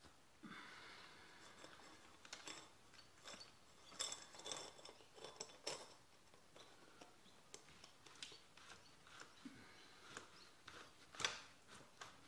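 Faint, scattered metallic clinks and rattles of a mini bike's roller chain being fitted over the rear sprocket and the rear wheel being turned by hand.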